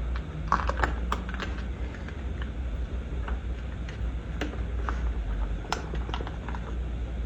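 Screws being driven back into a light-switch faceplate: a run of small, irregular clicks and ticks from metal screws and the plastic plate.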